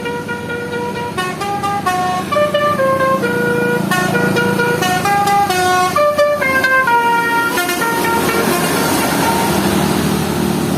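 Bus 'telolet basuri' musical air horn playing a tune of single notes that step up and down, over the rumble of the bus. In the last few seconds a rushing noise grows louder under the fading notes.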